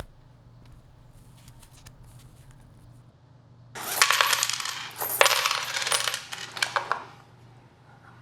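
Loud metallic jingling and clinking for about three seconds, starting about halfway in, with a short break after the first second.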